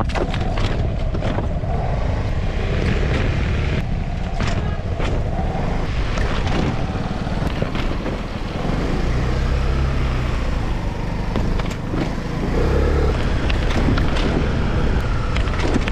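Voge SR250GT scooter being ridden over speed bumps and rough road: engine, wind and road noise with scattered short knocks from the bumps. With the front mudguard off, no rattle comes from the front end.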